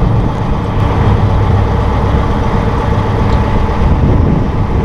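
Massey Ferguson 1742 compact tractor's diesel engine running steadily at idle, just fired up.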